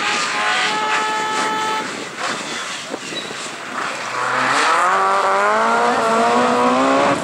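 Rally car engine accelerating hard, getting louder about four seconds in, its pitch climbing steadily through the last few seconds.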